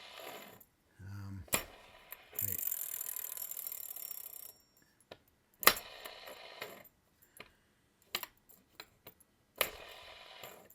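Stainless steel haptic fidget coin being worked by hand: sharp metallic clicks every few seconds with smaller ticks between them, and a high rattling buzz lasting about two seconds, starting roughly two seconds in.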